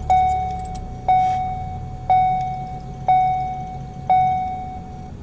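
Ford Focus dashboard warning chime sounding five times, about once a second, a single clear tone that fades after each strike, over the low hum of the engine idling just after a start.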